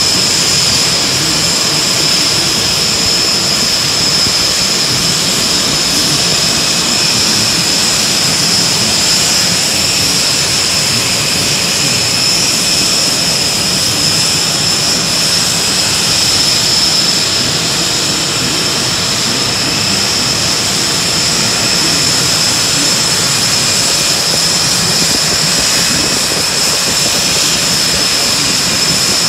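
Aircraft turbine engine running steadily: a constant high whine over a loud rushing noise, with no change in pitch or level.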